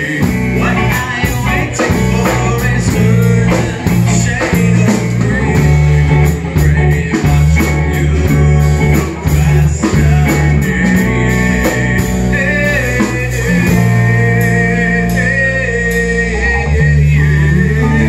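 Live band playing amplified: electric guitar, bass guitar and drums, with a man singing into a microphone over them.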